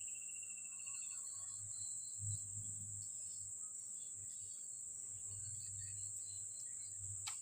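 Insects chirring in a steady, high-pitched drone, over a low intermittent rumble, with a faint thin whistle that stops about a second in and a sharp click near the end.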